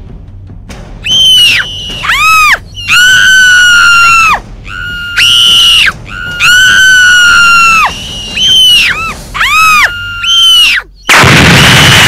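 A run of loud, very high-pitched shrieks, about ten in all, each held for up to about a second and a half and most dropping sharply in pitch at the end. Near the end a loud noisy blast cuts in.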